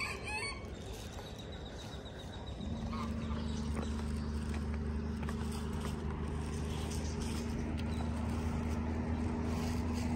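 A steady low mechanical hum starts about two and a half seconds in and keeps going, like a motor running. A chicken clucks briefly at the very start.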